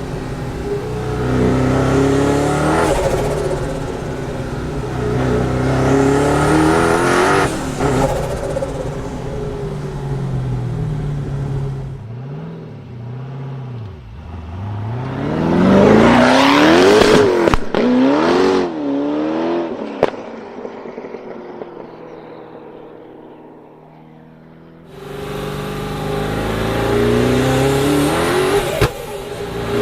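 Twin-turbo V8 of an Evantra supercar accelerating hard, its pitch climbing and dropping through several gear changes. The loudest run comes about halfway, then the engine note fades away. Near the end it is heard close and revving again.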